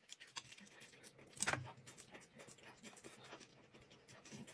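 Faint rustling, scratching and light clicks of a thin flour pancake being folded and rolled by hand on a plate, with one louder soft knock about one and a half seconds in.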